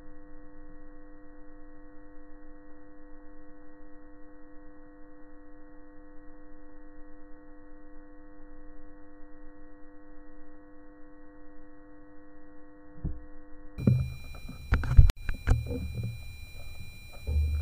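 A steady low hum made of several fixed tones. About three-quarters of the way through it cuts off and gives way to low thumps and sharp knocks, with one loud sharp knock soon after.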